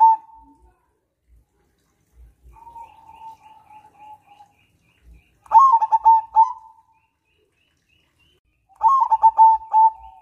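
Crossbred zebra dove (perkutut) cooing: phrases of rapid short staccato coos, a soft one followed by two louder ones about three seconds apart, with the tail of another phrase just at the start.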